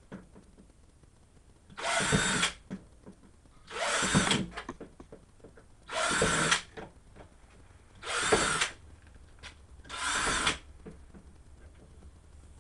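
Power drill with a twist bit drilling holes through the bottom of a plastic storage bin: five short whining bursts about two seconds apart, one per hole.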